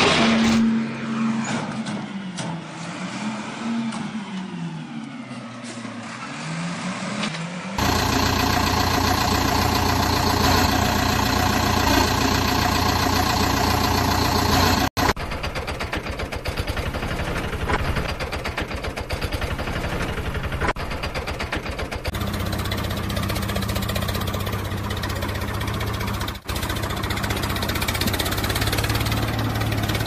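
Engine sound effects over toy-vehicle shots: first a low engine note rising and falling in pitch, then from about eight seconds a steady engine running, switching abruptly to a different engine sound twice.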